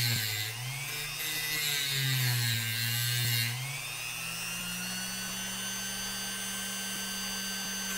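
Small electric grinder grinding the heads of steel spikes made from staples. For about three and a half seconds the motor's pitch sags and recovers as it bears on the metal, with a harsh hiss of grinding. Then it runs at a steady, higher pitch and a little quieter.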